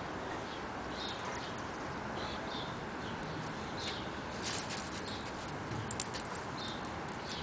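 A dog and a cat scuffling at play: a handful of sharp clicks and taps from paws and claws in the second half, the loudest about six seconds in, over a steady background hiss.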